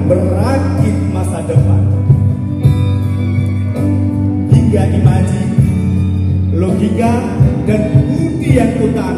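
Live band music with a singer, played loud over stage loudspeakers, with a steady bass line.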